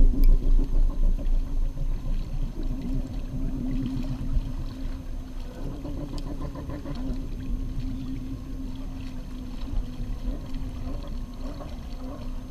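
Wind buffeting the microphone and sea water washing against shoreline rocks, gusting harder in the first few seconds, with a steady low hum underneath.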